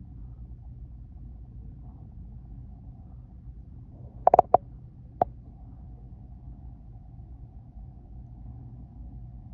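Low, steady rumble of a freight train heard from indoors, through a closed window and blind. About four seconds in there is a quick cluster of three or four sharp knocks, and one more a second later.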